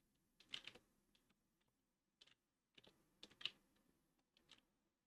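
Faint, scattered computer keyboard clicks, a handful of separate key presses with short gaps between them.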